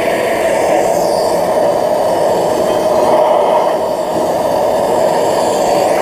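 Hand-held MAPP gas torch burning steadily into a small fire-brick forge: a constant, unbroken rush of flame heating a length of rebar.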